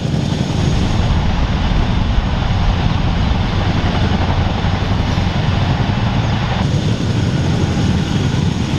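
Military heavy-lift helicopter running loud and close, a dense rotor and turbine noise with a fast, steady blade beat. The sound changes abruptly about a second in and again near the end.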